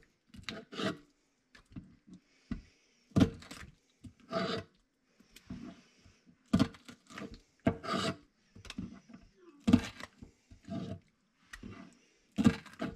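Knife cutting and scraping smelt on a wooden cutting board, in short, irregular strokes about once a second.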